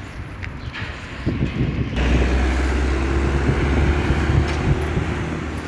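A motor vehicle's engine running close by: a steady low hum that sets in about two seconds in and holds through the rest.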